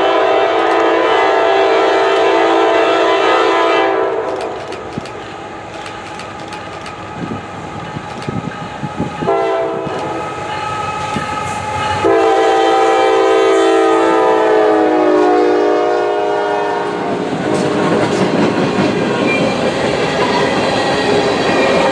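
Freight train with a lead GE Evolution-series locomotive sounding its multi-note air horn: a long blast, a fainter one around nine seconds in, then a long loud blast whose pitch falls as the locomotive passes. After that the freight cars rumble and clack over the rail joints.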